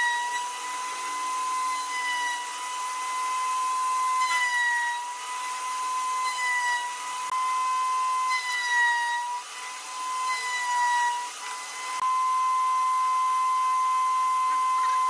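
High-speed power tool whining at a steady high pitch, sagging briefly about every two seconds as it is pressed into the work, then running evenly near the end.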